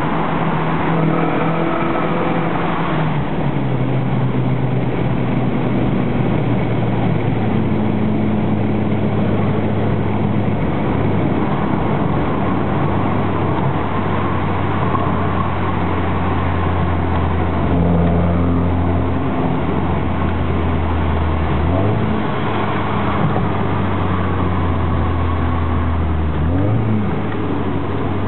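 Exhaust note of an Alfa Romeo 156 Twin Spark's four-cylinder engine through an aftermarket T.Welding sport muffler, running at a steady engine speed. The pitch drops a few seconds in, and there are two quick rises in revs later on.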